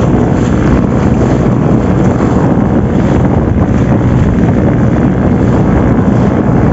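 Outrigger boat's engine running steadily under way, with wind buffeting the microphone.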